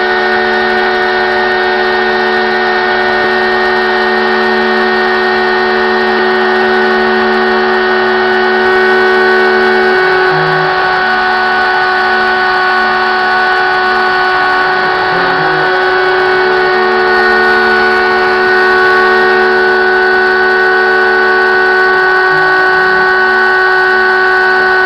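Stepcraft CNC router spindle running with a 3 mm end mill, cutting the border of a PCB on a shallow first pass: a steady whine of several held tones over a hiss of cutting. The lower tones waver briefly three times, about ten, fifteen and twenty-two seconds in.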